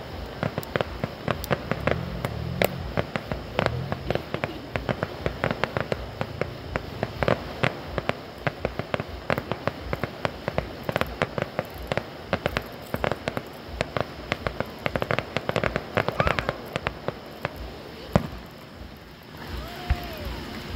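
Distant fireworks display: a rapid, dense string of crackling pops and bangs, many per second, thinning out near the end with one louder pop.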